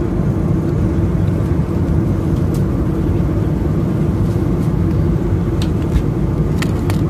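Steady cabin noise of an airliner in cruise: a constant low rumble of engines and airflow, with a few faint clicks.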